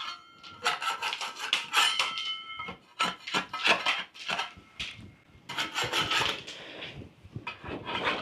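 Stiff steel putty knife scraping loose decorative plaster coating off a wall, in spells of rapid rasping strokes with short pauses between them. The coating flakes off easily because it is not bonded to the smooth layer beneath.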